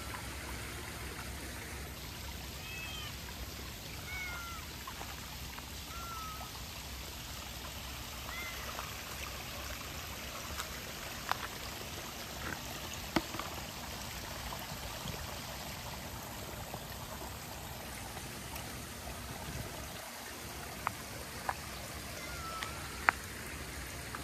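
Steady rush of rainwater running, with a cat giving short, high mews every second or two in the first third and once more near the end. A few sharp ticks sound in the second half.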